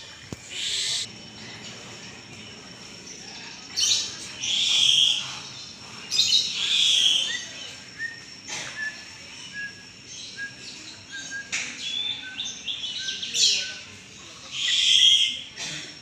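Purple swamphens calling: a series of loud, harsh calls about a second apart at first, then spaced a few seconds apart, with short faint high notes in between from about eight to twelve seconds in.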